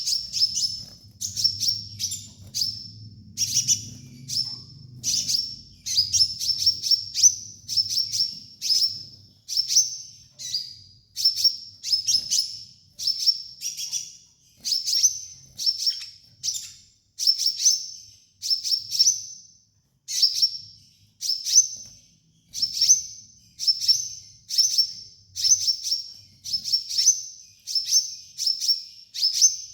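Kolibri ninja sunbird calling: sharp, high chirps repeated rapidly in short clusters about once a second, a looped tutor recording of the kind played to train caged sunbirds to sing.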